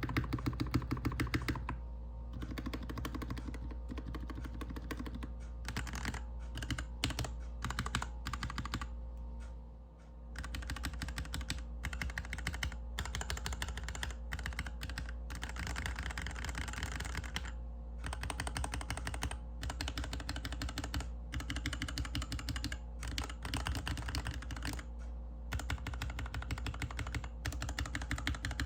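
Typing on a GK61X 61-key mechanical keyboard with stock Cherry MX Hyperglide Black linear switches, a stainless steel plate, a plastic case and DSA keycaps: a steady run of keystrokes on the modifier and letter keys. About ten seconds in the typing stops briefly, then carries on with the keyboard on a desk mat.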